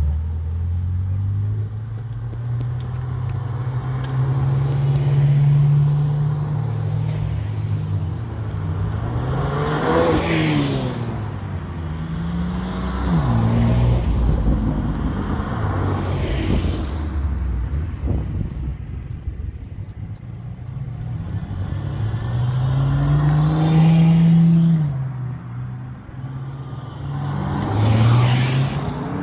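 A line of supercars, mostly Ferraris, driving past one after another, their engines revving and accelerating as each goes by. The engine note rises and falls with every car, with several distinct pass-bys where the pitch drops as a car goes past.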